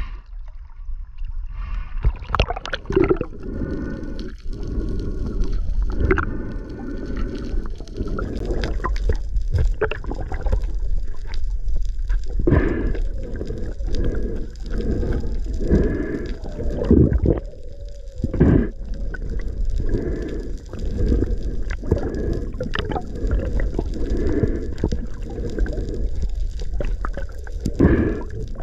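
Muffled sloshing and gurgling of sea water picked up by an underwater camera at the surface and then below it, with irregular bumps and rushes of water.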